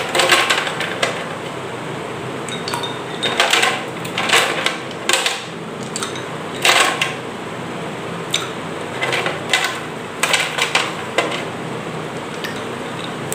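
Ice cubes dropped one at a time into glasses of juice, giving a dozen or so sharp clinks against the glass at uneven intervals.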